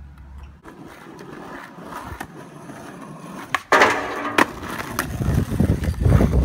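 Skateboard on a metal picnic bench: a couple of sharp clicks, then a sudden loud scraping grind along the bench seat for under a second, ending in a clack as the board comes off. After that the urethane wheels roll loudly on asphalt.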